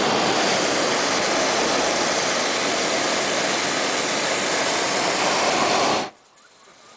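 Hot-air balloon's propane burner firing in one long blast: a loud, steady roar that cuts off abruptly about six seconds in.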